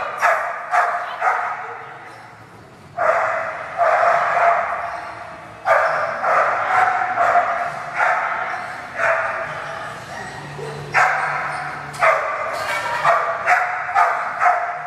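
A dog barking again and again, in runs of several barks with short pauses between them, each bark ringing on in a large echoing hall.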